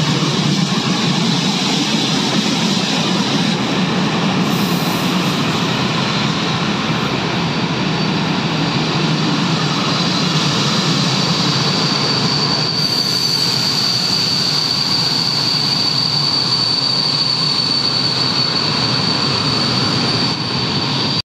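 Freight train of open-top high-sided wagons rolling steadily past at speed, a continuous rumble and clatter of wheels on rail. From about halfway through, a thin, steady high-pitched wheel squeal rises above the rolling noise.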